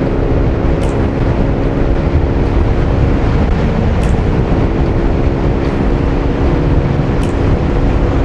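Yamaha Aerox scooter's single-cylinder engine idling steadily through an aftermarket Navin racing exhaust, with a slight change in the engine note about halfway through.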